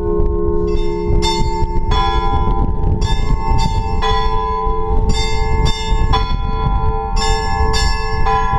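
Orthodox church bells rung by hand in the belfry: smaller bells are struck in repeating groups of three quick strokes, a group about every two seconds, over the lingering hum of a larger bell.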